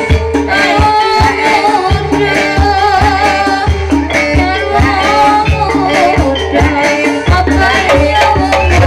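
Live ebeg (kuda lumping) gamelan accompaniment played loud: a steady beat of drum strikes under wavering melodic lines and sustained tones, with a rattling jingle.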